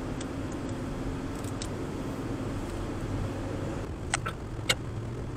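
Steady road and engine noise of a moving car heard from inside the cabin, with a few short sharp clicks about four seconds in.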